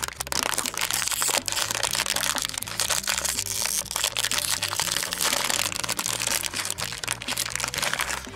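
Foil blind-bag wrapper crinkling and crackling as hands handle it and pull it open: a dense, continuous run of crackles.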